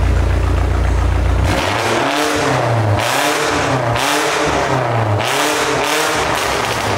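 BMW sedan's engine run loud and steady for about a second and a half, then revved in repeated rising-and-falling blips about once a second, with the exhaust crackling and popping between revs. Its exhaust is loud enough that a bystander takes it for straight-piped.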